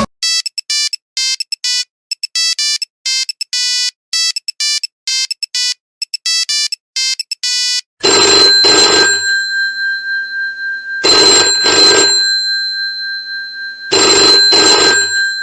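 Two mobile phone ringtones one after the other. First, quick high electronic beeps in short repeated bursts for about eight seconds. Then a bell-like ringtone: a double strike that rings on, coming three times about three seconds apart.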